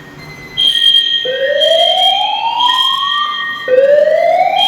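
Fire alarm system under test sounding its evacuation alarm: a high beeping tone together with a whooping tone that sweeps upward twice, each sweep about two seconds long.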